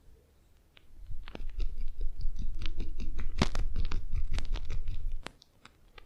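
Close, crackly scratching and rubbing of massage hands working over hair and skin. It starts about a second in, runs as a dense stream of small clicks for about four seconds, then stops abruptly.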